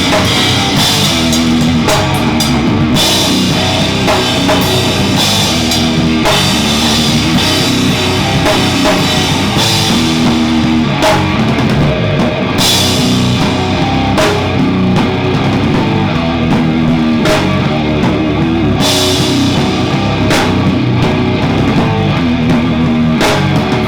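Hardcore band playing: drum kit under distorted electric guitar, loud and steady, with several crash cymbal hits along the way.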